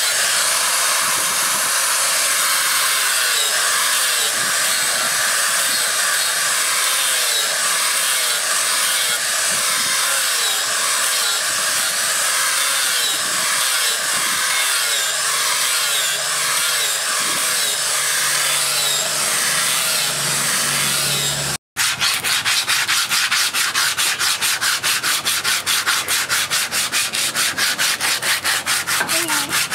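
An angle grinder with a sanding disc sands a wooden axe handle, its motor running steadily as the pad rubs the wood. After a sudden break about two-thirds of the way through, sandpaper is rubbed by hand along the handle in quick, even strokes.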